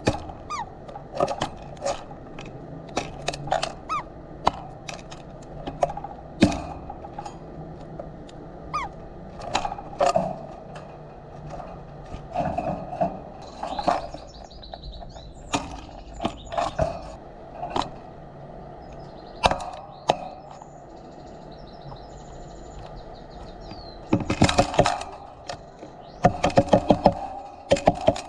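Birds pecking seed on a feeder close to the microphone: irregular sharp taps and knocks, becoming quick runs of rapid taps near the end. A few faint bird chirps can be heard behind them.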